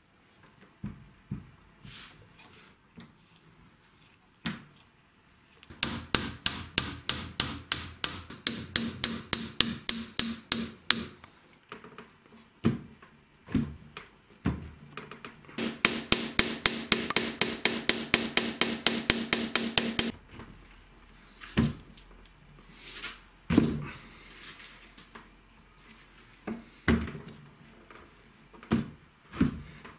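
Hammer blows on a steel punch held against a rusted mini vise, about five sharp metallic taps a second with a ringing note, in two long runs, then a few scattered knocks: driving out a seized part freshly soaked in penetrating oil.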